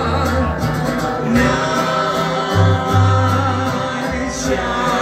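Live mariachi-style heavy metal band playing loud, a man singing over long, strong bass notes.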